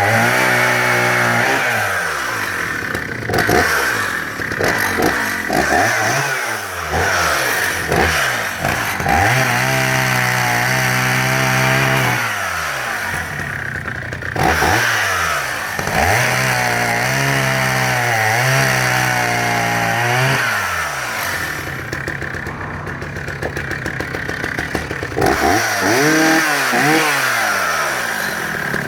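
Husqvarna 480CD 77cc two-stroke chainsaw revving up and dropping back to idle again and again while cutting wood, held at high speed for a few seconds at a time, about ten and about sixteen seconds in.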